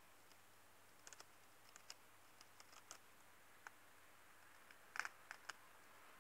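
A hamster nibbling and cracking seeds: faint, irregular little clicks, the loudest coming in a quick cluster about five seconds in.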